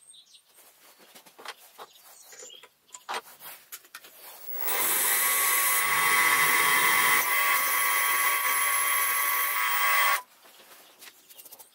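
Mini mill running a drill bit into the lathe carriage to drill a pilot hole: a loud, steady motor and cutting sound starts a little under halfway in and cuts off suddenly near the end. Faint scattered clicks come before and after it.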